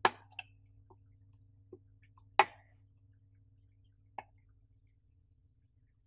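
A handful of sharp clicks and taps as a DDR4 RAM stick with a heatsink is handled against a motherboard, the loudest about two and a half seconds in.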